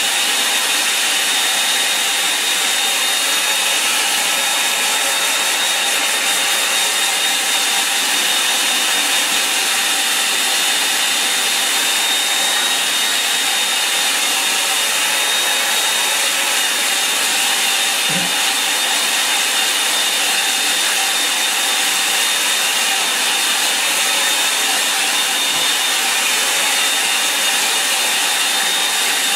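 Handheld hair dryer running on a steady blow: a loud, even rush of air with a steady high whine on top.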